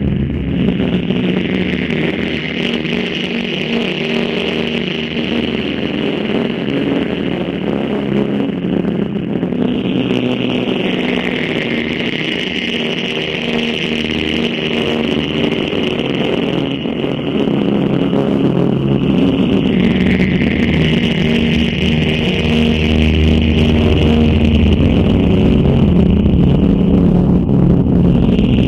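Electronic drone played from a laptop: a dense layer of steady low tones under a hissing band higher up, which steps up and down in pitch every several seconds and grows slightly louder toward the end.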